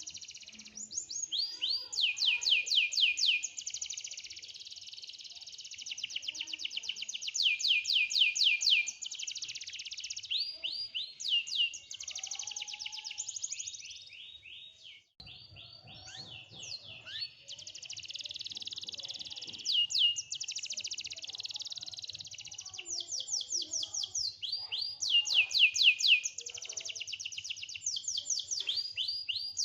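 Domestic canary singing a long, vigorous song of fast trills, each a rapid run of repeated high notes, changing from one trill to the next, with one brief pause about halfway through.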